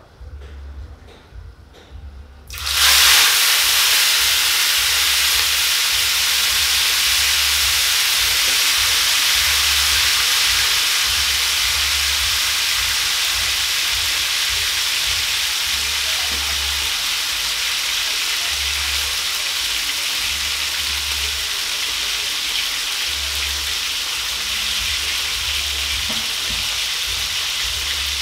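Marinated whole tilapia laid into hot oil in a frying pan: a loud sizzle starts suddenly about two and a half seconds in, then the fish fries steadily, easing only a little.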